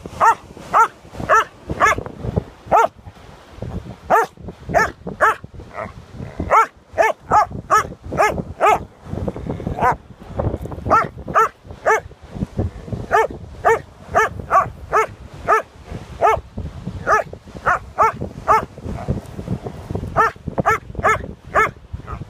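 A dog barking at a crab in quick, short barks, about two to three a second, with a few brief pauses.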